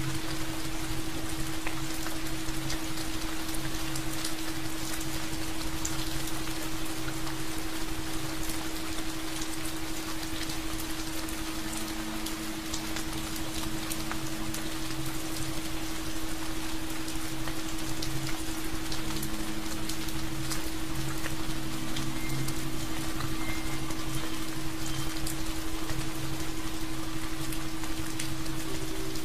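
Steady rain falling, with drops pattering on a surface. A steady low hum tone runs under it, and softer sustained tones come and go.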